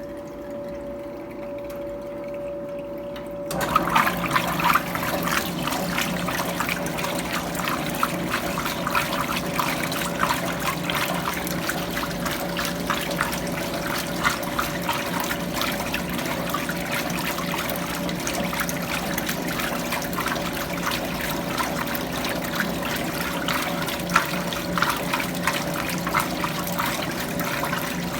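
Electrolux Prosdócimo washing machine in its rinse cycle: a steady hum, then about three and a half seconds in, water starts rushing and splashing in the tub and keeps going with the hum underneath.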